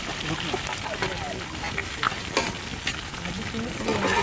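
Masala-coated chicken pieces frying in hot oil: a steady sizzle and crackle, with a few sharp ticks.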